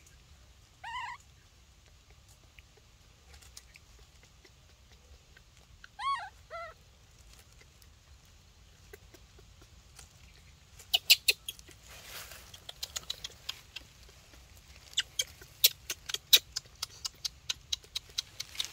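A baby macaque gives two short, thin arching calls about a second in and again near six seconds. From about eleven seconds a quick run of sharp clicks and rustles follows as the baby is lifted and handled.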